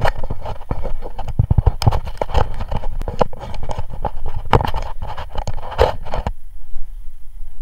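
Climbing and handling noises on a steel water tower: a quick, irregular string of knocks, clicks and scrapes as hands grab the metal bracing, stopping about six seconds in, over a steady low rumble.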